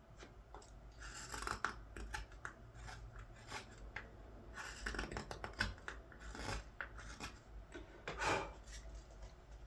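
Carving knife paring green wood on a ladle: a run of short, irregular scraping cuts, the louder strokes about a second and a half, six and a half and eight seconds in.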